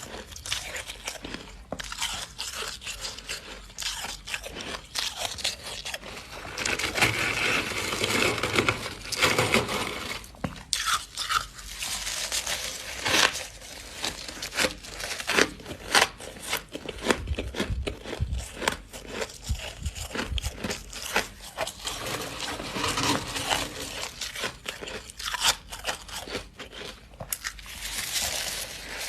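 Close-miked biting and chewing of freezer frost: dense, irregular crunching with many sharp crackles.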